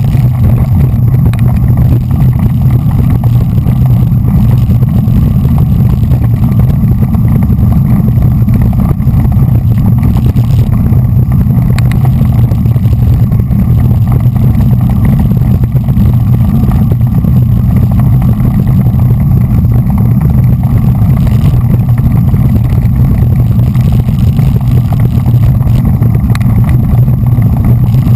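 Loud, steady wind rumble on the microphone of a bike-mounted action camera riding at race speed in a bunch of road cyclists.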